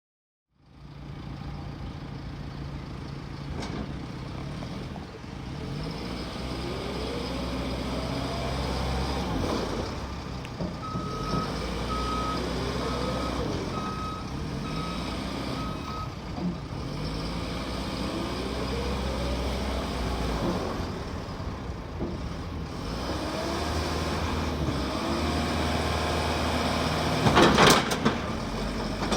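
JCB 3CX backhoe loader's diesel engine running, its revs rising and falling repeatedly as the machine works. A reversing alarm beeps steadily for about five seconds in the middle, and a few sharp clanks come near the end.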